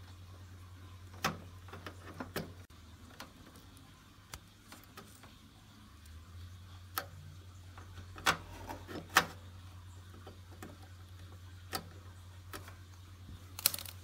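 Scattered sharp clicks and taps, about eight of them, as a pointed metal tool pushes a small two-pin S/PDIF cable plug onto motherboard header pins, over a faint steady low hum.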